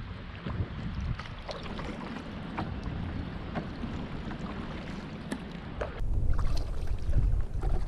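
Canoe paddle strokes in shallow water, with drips and small splashes as the blade dips and lifts. About six seconds in, the sound changes abruptly to wind buffeting the microphone, with water lapping and dripping.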